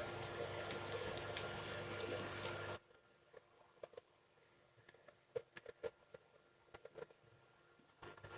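Quiet kitchen sounds of cooking in a pan: a steady hiss for about three seconds, which cuts off suddenly, then a quieter stretch of scattered soft clicks and taps as food is handled and pressed down.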